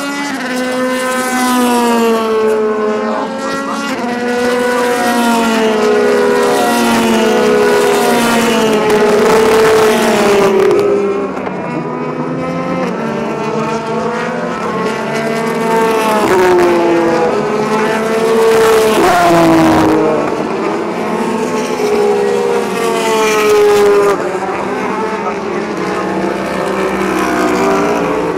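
Race car engines on a circuit, their pitch climbing and dropping again and again as the cars accelerate up through the gears and downshift into corners, with two engines overlapping at times.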